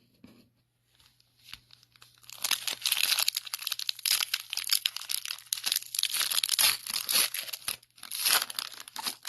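Plastic wrapper of a pack of 2015 Score football cards being torn open and crinkled by hand, starting about two seconds in, with a brief pause and more crinkling near the end.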